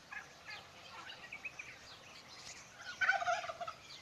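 Farmyard poultry calling: scattered short calls, then a louder, rapid rattling call about three seconds in that lasts around half a second.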